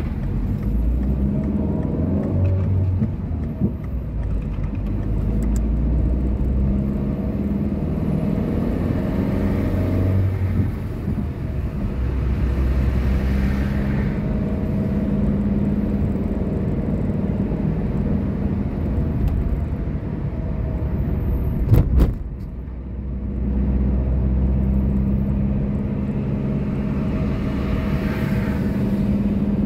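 A car driving steadily, its engine hum and tyre and road noise heard from inside the cabin, swelling and easing with speed. About 22 seconds in there is a sharp double click, followed by a brief dip in the noise.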